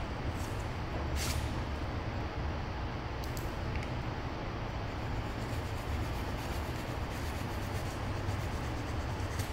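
A hand blade carving and scraping foam trim, with a few short scrapes and a brief squeak over a steady low rumble and hiss.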